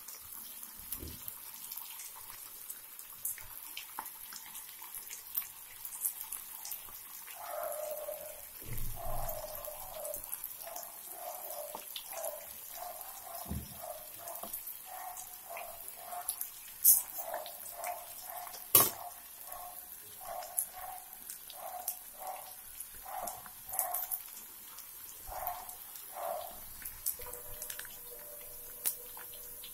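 Balls of vegetable Manchurian batter deep-frying in hot oil: a steady sizzle with crackling spatters. Over it, an animal calls again and again, about twice a second, through most of the stretch, and two sharp clicks stand out about halfway through.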